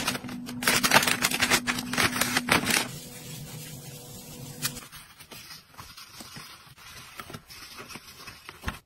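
Rapid clicking and clattering of kitchen items being handled, over a steady low hum, for the first five seconds or so. Then softer scattered rubbing and brushing as a stove burner is scrubbed with a brush.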